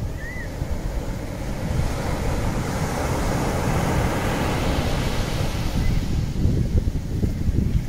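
Sea surf breaking and washing up a sandy beach, with wind buffeting the microphone. The wash swells about two seconds in.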